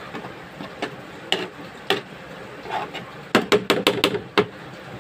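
Kitchen utensils knocking sharply: a few spaced knocks, then a quick run of them about three and a half seconds in.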